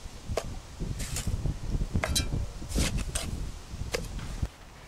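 Steel trowel scraping and tapping against sandstone edging stones while packing stiff sand-and-cement mortar: about six short, sharp scrapes and clicks, one ringing briefly. A low rumble runs underneath and stops about four and a half seconds in.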